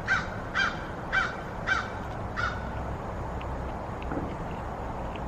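A crow cawing: five harsh caws about half a second apart, stopping about two and a half seconds in, over a steady low background hum.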